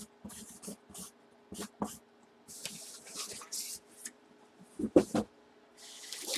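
Marker pen writing a name: a string of short scratchy strokes, with a couple of sharp knocks about five seconds in, likely the pen being set down or capped, over a steady low electrical hum.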